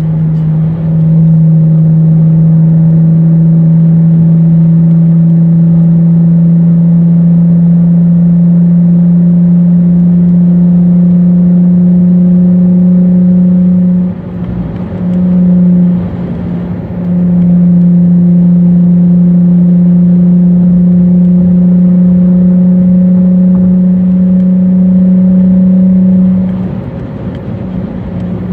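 Dodge Charger V6 engine and exhaust droning loudly at a steady pitch under throttle at highway speed, heard from inside the cabin. It drops off twice about halfway through and again near the end.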